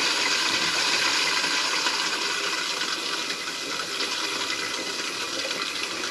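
Water running steadily from a caravan tap on mains pressure, fed through a just-cleaned water pressure regulator. The flow is a lot better than it was but still not perfect, easing slightly partway through.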